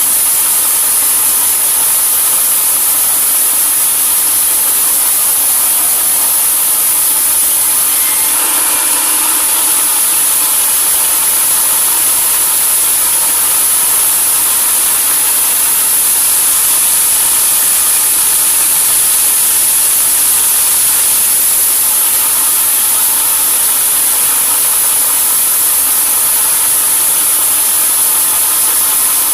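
Sawmill saw machinery running steadily, a loud constant high hiss over a machine drone, with slight shifts in its sound about eight seconds in and near twenty-two seconds.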